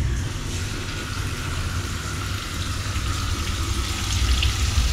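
Whole marinated marble goby (betutu) frying in hot oil in a pan: a steady crackling sizzle, with a low steady hum beneath it.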